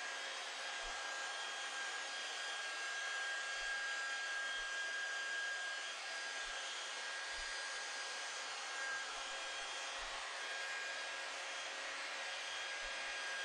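Electric drill running steadily at one speed, spinning a foam cutting pad with polishing compound over a plastic headlight lens. It makes a constant motor whine over a steady hiss.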